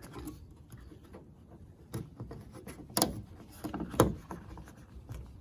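Decorative trim strip being fitted back onto a car's outside door handle: a few sharp clicks and knocks as it is pressed into place, the loudest two about three and four seconds in.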